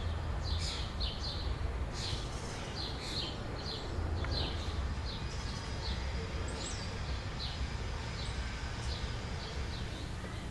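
Small birds chirping over and over, over a steady low rumble.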